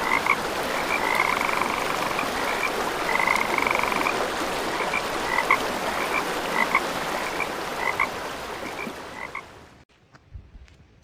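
Frogs calling, short repeated notes and a couple of longer trills, over the steady rush of flowing water from the falls. The sound cuts off suddenly near the end, leaving only a few faint clicks.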